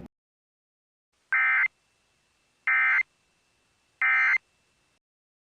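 Emergency Alert System end-of-message signal: three short bursts of SAME digital data tones, a raspy electronic screech, each about half a second long and about a second apart, marking the end of the alert.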